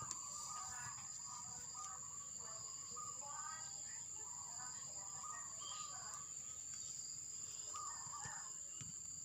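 A steady, high-pitched insect trill, typical of crickets, holds throughout. Short warbling calls come and go beneath it.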